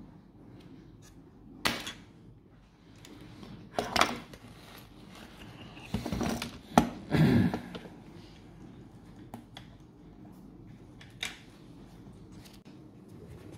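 Scattered sharp clicks and knocks of bench work on a battery's circuit board. A spring-loaded desoldering pump snaps as it sucks solder, then tools are put down and the board is handled, with a loud cluster of knocks around the middle.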